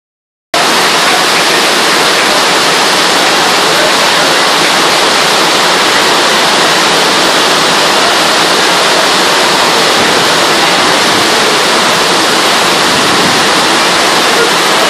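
Heavy tropical downpour: a steady, loud roar of rain falling on a corrugated metal roof overhead and the ground around it, cutting in abruptly about half a second in.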